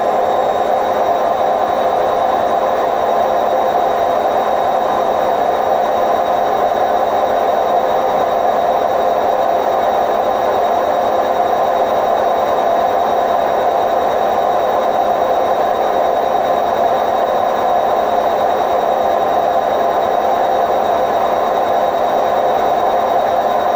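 Hotpoint WMF760 washing machine spinning at a steady speed, its drum bearings giving a loud, steady roar with a thin high whine over it: the sign of worn-out drum bearings.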